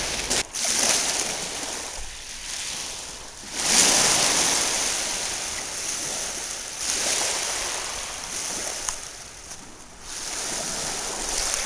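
Small lake waves washing up onto a sand and pebble shore and drawing back, in surges every few seconds, the loudest about four seconds in.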